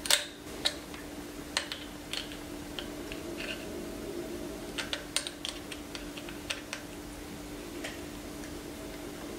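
Small irregular metal clicks and taps as a screwdriver tightens the screw holding a gathering foot on an industrial sewing machine's presser bar, over a faint steady hum.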